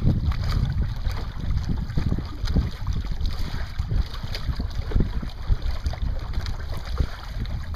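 Wind buffeting the microphone with a low rumble, over irregular splashing and lapping of water along the hulls of small sailboats under way.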